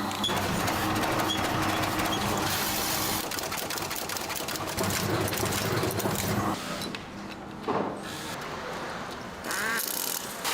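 Machinery running with a steady hum and dense mechanical clatter, dropping quieter for a couple of seconds near the end.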